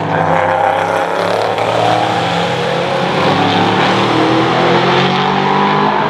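A prototype sports racing car's engine at high revs as the car passes and pulls away. The engine note rises and falls with the gear changes.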